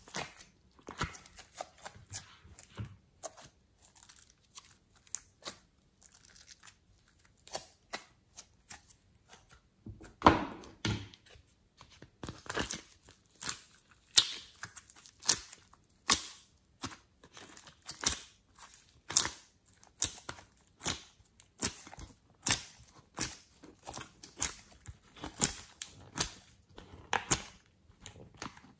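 Slime being squeezed, stretched and peeled off plastic moulds by hand: an irregular run of sticky pops and crackles, which grows busier and louder about twelve seconds in.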